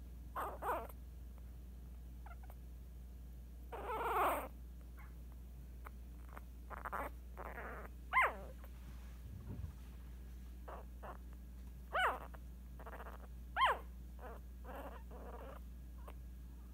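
Eight-day-old Scottish Terrier puppy squeaking and whimpering in its sleep: about five short high squeaks a few seconds apart, the longest and loudest about four seconds in, with softer breathy sounds between.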